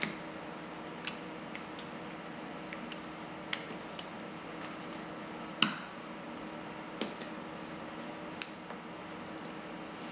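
Small sharp clicks and taps from the iPhone 3G's metal-backed LCD assembly being pressed and snapped onto its touchscreen frame by hand. About eight or nine irregular clicks, the loudest about halfway through, over a faint steady hiss.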